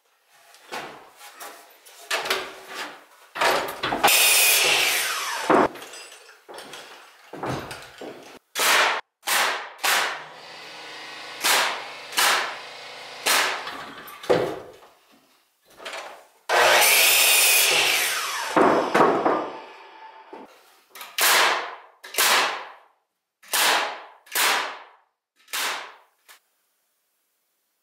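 Carpentry framing with 2x4 lumber: a circular saw cutting through boards twice, each cut lasting a second or two, between many short, sharp knocks of wood being fitted and fastened.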